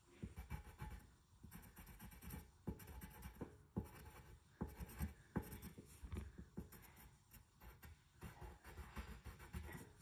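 Pencil scratching faintly on paper in short, irregular strokes while drawing.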